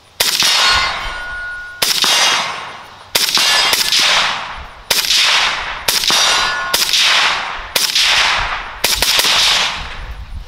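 About ten suppressed rifle shots fired one at a time at an uneven pace, roughly one a second with a couple close together. Each shot is followed by a long fading echo, and after a few of them comes a brief ring, typical of steel targets being hit.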